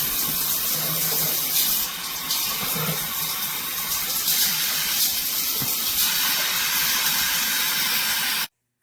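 Water spraying steadily from a shower head, an even hiss that cuts off abruptly near the end.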